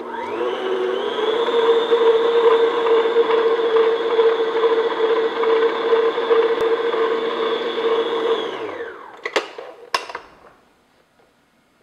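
Stand mixer motor speeding up as it is switched on, running steadily for about eight seconds with its flat beater in butter, cream cheese and vanilla, then winding down as it is switched off. Two sharp clicks follow near the end.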